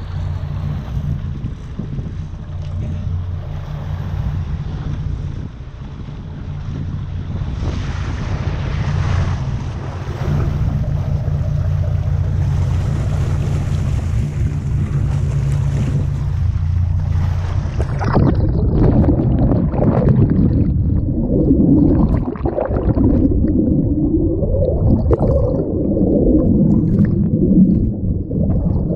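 Fishing boat's engine running steadily under wind and water rushing along the hull. About two-thirds of the way in, the sound turns muffled and bubbly as it is heard from under the water: a gurgling rush of churned water and bubbles.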